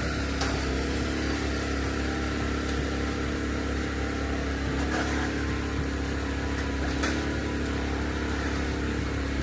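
An engine running steadily at idle, with an even low hum and a few faint clicks.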